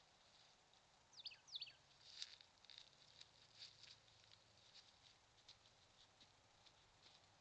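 Faint outdoor quiet in which a small bird gives two quick chirps about a second in, followed by irregular soft crackling clicks, a few a second at most.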